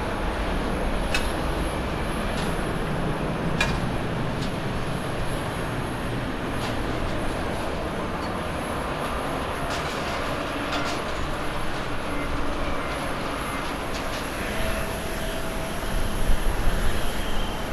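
Jet airliner engines at takeoff thrust: a steady roar from a twin-engine jet climbing away after takeoff. Near the end a Boeing 787-8 on its takeoff roll grows louder.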